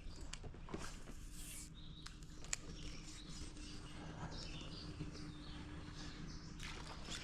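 Small birds chirping here and there over a quiet outdoor background, with a few sharp clicks and a faint steady low hum.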